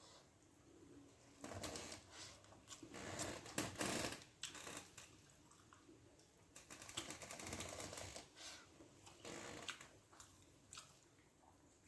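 Bursts of close, wet clicking and crackling: rice with mackerel fish gravy being mixed and eaten by hand off a banana leaf. The loudest burst comes about three to four seconds in.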